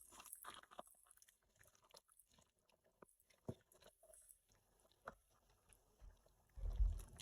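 Faint, scattered clicks and knocks of cookware and utensils being handled, with a louder low rumble near the end.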